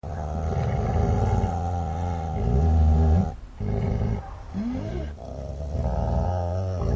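A dog growling: long, low, rough growls with two short breaks, about three and a half seconds in and again near five seconds.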